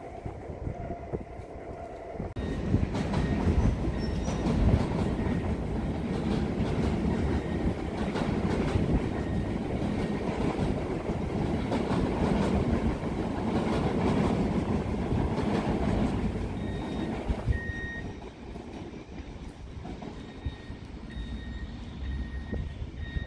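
NS ICMm 'Koploper' electric intercity train running across a steel railway bridge: a rumble with wheel-on-rail clatter that sets in about two seconds in, holds, then drops away about three-quarters of the way through as the train recedes. Short, faint, high-pitched wheel squeals come and go in the second half.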